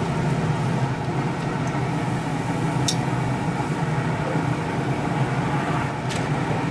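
A steady low mechanical hum with an even haze of noise over it, and a couple of brief light clicks.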